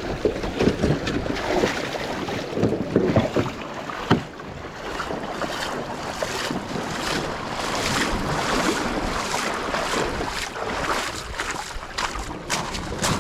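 Wind buffeting the microphone over the rush and splash of a shallow creek, with scattered short splashes or knocks.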